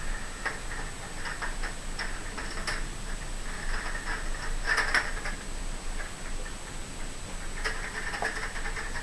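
A cleaning rod is pushed down the bore of a Bushmaster XM15 AR-15 rifle toward the bolt, making light, scattered clicks and scraping. The louder scrapes come about five seconds in and again near the end. This is the rod check of the bore that proves no cartridge is in the barrel.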